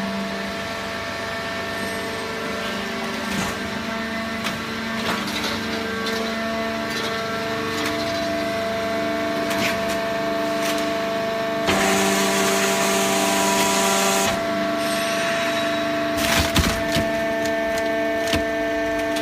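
Top-load hydraulic cardboard baler running: a steady machine hum with scattered clicks and cracks as the cardboard is compressed. A hiss joins in for about two and a half seconds past the middle.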